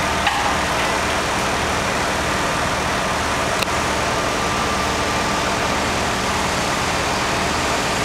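Mobile crane's diesel engine running steadily while the crane holds a cut tree limb suspended.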